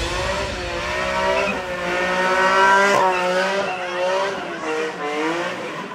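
BMW M3 drifting with its rear tyres spinning: the engine revs rise and fall with the throttle while the tyres squeal.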